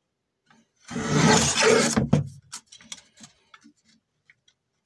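Paper cutter's guillotine blade shearing through a strip of aluminum flashing: one loud cut about a second long, then a string of light clicks and taps as the strip and cutter arm are handled.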